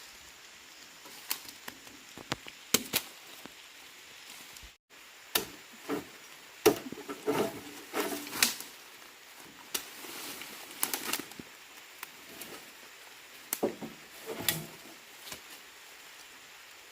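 Irregular knocks, clicks and short scrapes of hand work with tools, spaced unevenly.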